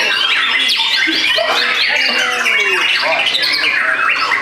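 Several caged white-rumped shamas (murai batu) singing at once in competition, a dense, unbroken overlap of loud whistled glides, trills and rapid chattering notes.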